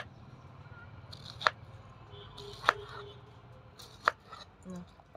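Knife cutting star fruit on a chopping board: four separate sharp knocks, about one every second and a half.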